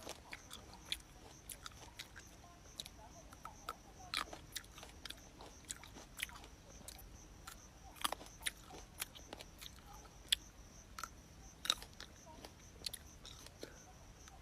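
Close-up biting and chewing of crisp fresh fruit: an irregular run of wet crunches and clicks, a few of them louder bites.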